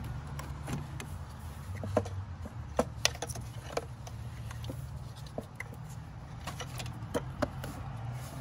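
Rear ignition coil pack of a 2001 Cadillac DeVille being wiggled down into place by hand: scattered clicks and knocks as it seats among the brackets and wiring, grouped a couple of seconds in and again near the end, over a steady low hum.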